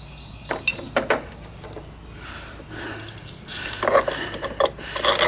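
Metal tools and hardware clinking and rattling against the tractor while a replacement starter is being fitted: a few sharp clicks, then a busier run of clinks near the end.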